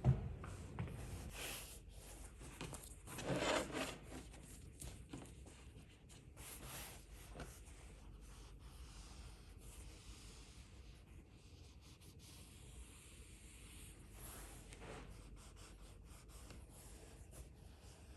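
Faint rubbing and rustling of upholstery material being handled and smoothed over a seat base, with scattered light clicks and a louder rustle about three seconds in.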